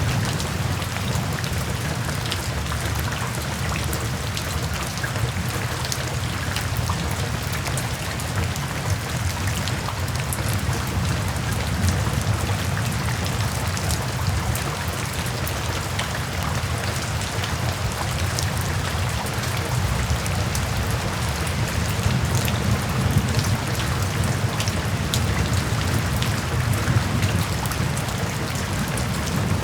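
Steady rain falling, with many individual drops ticking sharply close by over a continuous low rumble.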